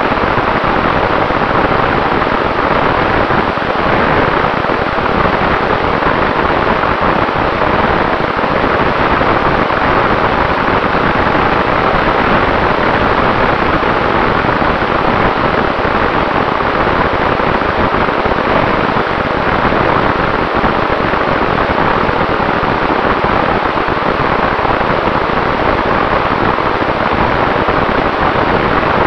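Steady rush of wind over the onboard camera of a Sonicmodell Mako FPV flying wing in cruise, with a faint steady whine from its electric motor and APC 7x5 propeller underneath.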